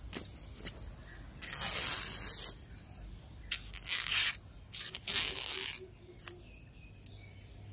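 Edge of a hollow-ground SUP9 spring-steel knife slicing through a dry bamboo sheath, several dry rasping cuts with short pauses between them: a sharpness test of the blade.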